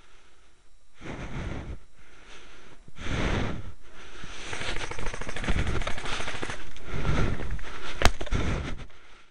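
Airsoft guns firing in long bursts of rapid clicks, louder from about three seconds in, with a single sharp crack near the end.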